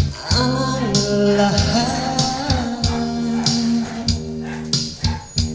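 A singer sings a ballad into a microphone over a recorded backing track of guitar and a steady beat, the voice gliding through long held notes in the first half.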